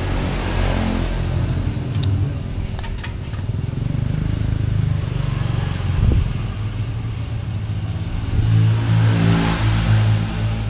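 Two-stroke motorcycle engine running at idle, revved up briefly about half a second in and again from about eight to ten seconds. A sharp knock comes about six seconds in.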